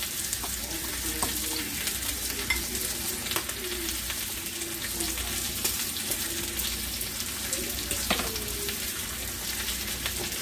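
Steak sizzling as it fries in a pan, a steady hiss, with a few light clicks of a spoon against a glass mixing bowl.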